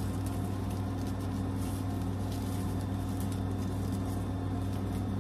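Steady low room hum with faint rustling of a ribbon braid being handled.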